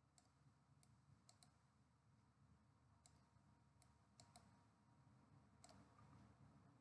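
Near silence with about nine faint, sharp clicks scattered through it, a computer mouse button pressed and released while handwriting on screen with a pen tool.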